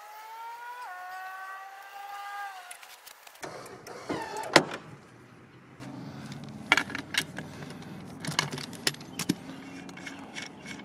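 A drawn-out squeak of about three seconds, then metallic clicks and clinks as a socket wrench works the lug nuts off a lawn tractor's rear wheel, with one sharp click near the middle.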